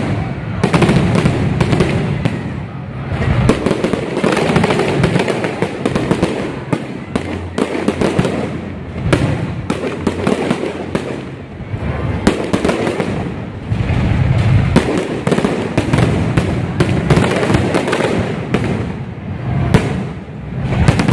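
Aerial fireworks display: shells bursting in a rapid run of loud bangs, with dense crackling between them.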